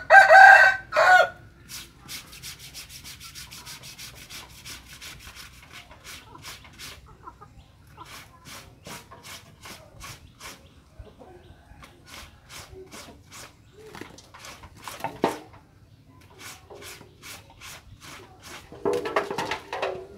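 A rooster crows loudly right at the start. A long run of faint, fast ticks follows, with short chicken calls about 15 seconds in and again near the end.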